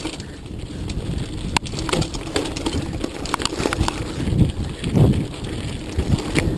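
Mountain bike riding down rough, rocky ground: tyres rolling over stones and the bike rattling, with many irregular knocks and jolts.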